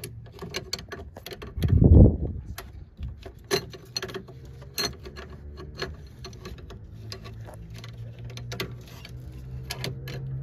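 A wrench working on a fuel pressure sensor's metal fitting: a run of small metal clicks and taps, with a low thump about two seconds in.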